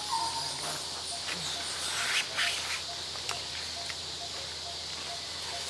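Forest ambience: a steady high insect drone with a faint short note repeating a few times a second. A brief call sounds right at the start, and a few soft clicks and rustles come around two to three seconds in.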